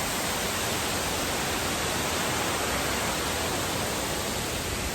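Waterfall and river water rushing, a steady even roar.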